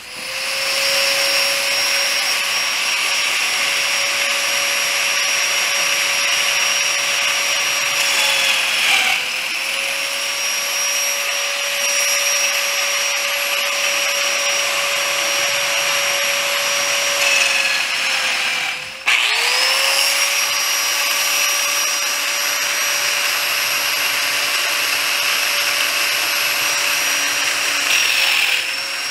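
Plate joiner (biscuit joiner) motor running with a steady high whine while it cuts joint slots in pine. The pitch sags briefly about nine seconds in. About nineteen seconds in, the motor is switched off, coasts down and spins back up.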